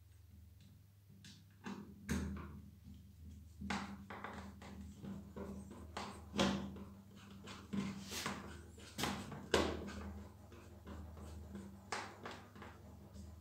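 Plastic parts of a Nilfisk G3 pressure washer spray gun being handled and fitted together: irregular clicks, knocks and rattles, the loudest a little past halfway, over a steady low hum.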